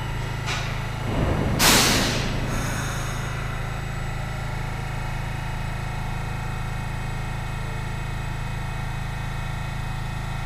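New York City subway train running with a low, steady rumble as it pulls along a station platform, with a loud hiss of air about a second and a half in, fading over about half a second.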